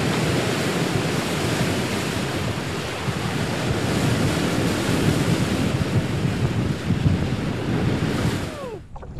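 Ocean surf: a steady rushing wash of breaking waves, fading out near the end.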